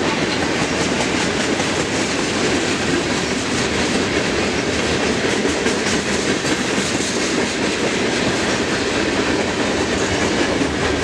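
Freight train's cars rolling steadily past close by, steel wheels clattering over the rail joints over a continuous rumble.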